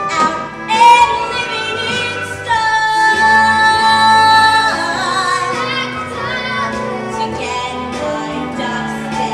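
Young female voices singing a musical-theatre song with instrumental accompaniment. A long note is held for about two seconds a few seconds in.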